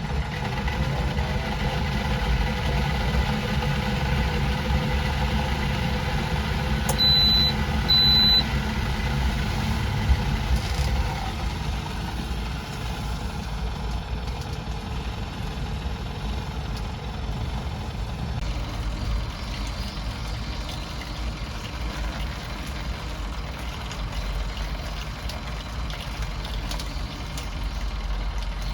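A vehicle engine running steadily with a low rumble. Two short, high electronic beeps sound about seven and eight seconds in.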